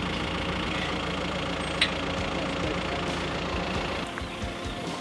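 An engine idling steadily, with one sharp click a little under two seconds in; the engine sound drops away about four seconds in.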